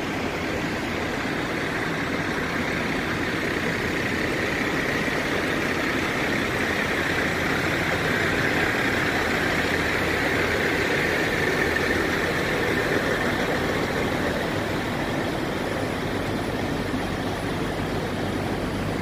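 Diesel engines of parked semi trucks idling, a steady rumble that grows slightly louder midway and eases off again.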